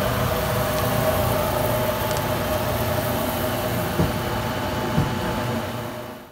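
Toper drum coffee roaster running, its motor humming with a steady tone over the hiss of roasted beans churned round the cooling tray by the rotating stirring arm. Two light knocks about a second apart near the middle, and the sound fades out near the end.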